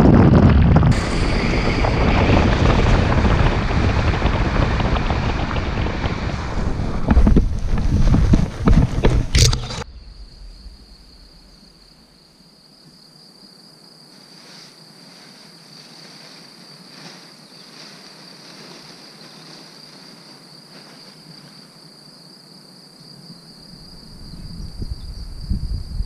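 Airflow rushing over the camera microphone during a paraglider flight, loud and gusty, with a few sharp knocks near nine seconds. It cuts off abruptly about ten seconds in to a quiet, steady high insect trill with faint rustles.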